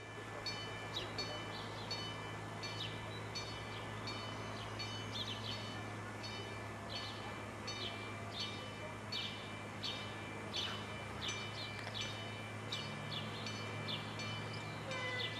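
Level-crossing warning bell ringing in a fast, steady series of short high strokes, about two a second, over a steady low hum.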